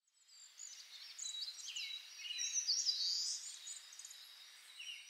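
Small birds chirping and twittering over a faint outdoor hiss, the calls thickest about halfway through.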